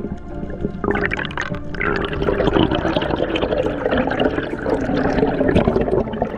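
Water churning and bubbling close to the microphone, as in spearfishing footage in the water.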